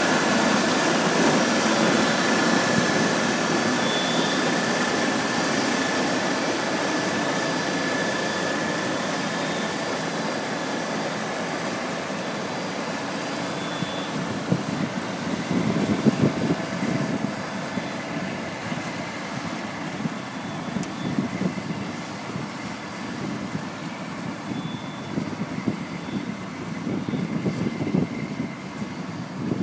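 Tractor-drawn Grimme potato harvester running in the field: a steady mechanical drone of engine and machinery with a thin high whine over the first few seconds, growing fainter as the machine moves away. Wind buffets the microphone in the second half.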